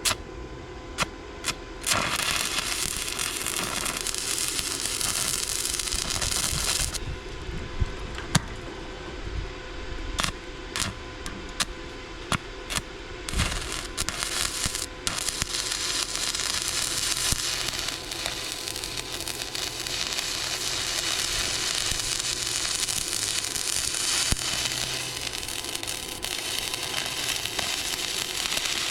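Electric arc welding on the steel trailer frame: the arc crackles and hisses in a run of about five seconds, then starts and stops in short spurts, then runs as one long continuous bead near the end. This is a continuous weld where tack welds had been planned.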